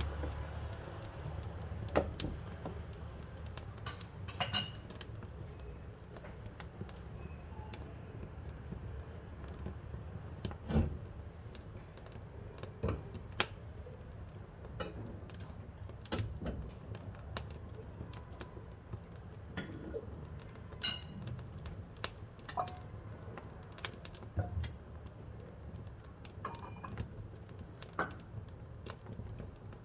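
Wood fire in a wood-burning cookstove crackling: irregular sharp pops and snaps, with a few louder cracks every few seconds, over a low steady rumble.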